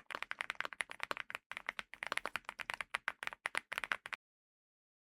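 Fast typing on a QK100MK2 prebuilt mechanical keyboard: a dense stream of keystroke clacks with a brief pause about a second and a half in, stopping abruptly about four seconds in.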